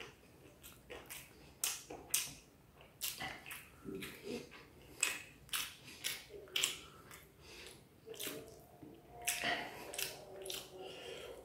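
Close-up eating sounds: irregular wet clicks and smacks from chewing and from fingers picking at saucy chilli chicken and chow mein, a couple every second.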